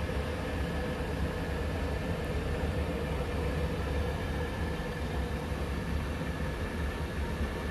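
Thermomix running steadily while it cooks cheese sauce with broccoli steaming on top: an even motor hum over a low rumble, with a faint steady whine.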